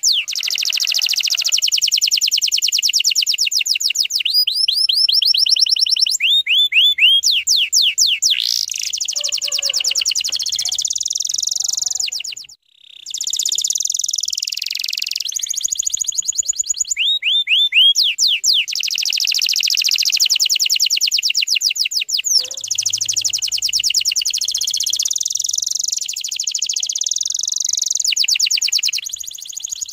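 Domestic canary singing long, dense trills of very fast repeated notes and sweeping whistles, with a brief break about twelve and a half seconds in.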